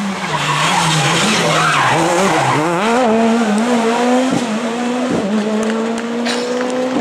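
Rally car engine revving hard through a bend, its note wavering up and down with the throttle, over a hiss of tyres sliding on loose gravel. It then pulls away with a steadily rising note, broken twice by short dips.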